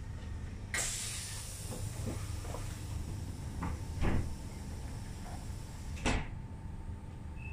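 Interior of a railway couchette coach: a steady low hum with a hiss that comes in about a second in and fades near the end, broken by a few short knocks, the loudest about four seconds in.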